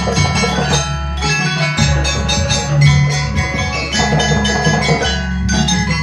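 Banyuwangi gamelan ensemble playing: kendang drums struck by hand under the ringing of metallophones struck with mallets, in a dense, steady rhythm.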